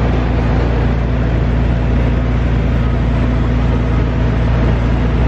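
Ice cream truck's engine idling: a steady low hum that holds level throughout.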